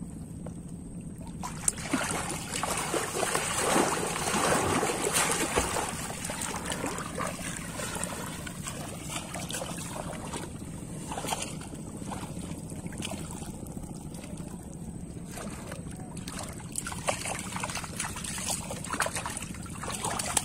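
Water sloshing and splashing as a person moves and works their arms while standing chest-deep in water, picking up about two seconds in and going on unevenly. Near the end a large fish thrashes at the surface.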